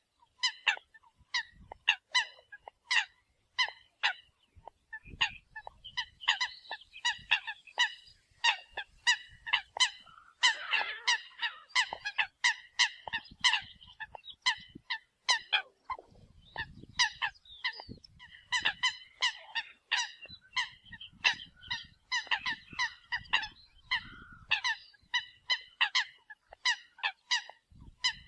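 Eurasian coots calling: many short, sharp honking notes in quick succession, several a second, with no pause through the stretch.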